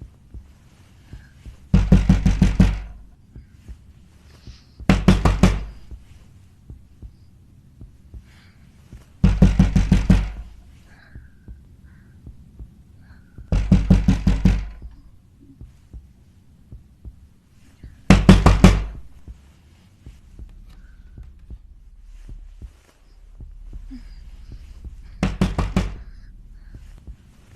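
Heavy, rapid knocking, as if on a door: six bursts of several fast blows each, coming every few seconds. A faint low hum lies beneath the later bursts.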